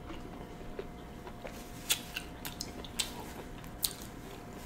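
Close-up chewing of soft, sauce-coated seafood, with a scatter of short, sharp wet mouth clicks and smacks; the strongest come about two, three and four seconds in.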